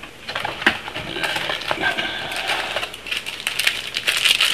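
Plastic trading-card pack wrappers crinkling and crackling as they are handled and torn open, with sharp little clicks through it.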